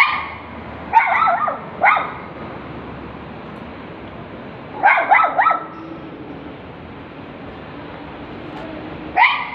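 Small poodle barking in sharp, high yaps, sometimes singly and sometimes in quick runs of two or three, with pauses of a few seconds between.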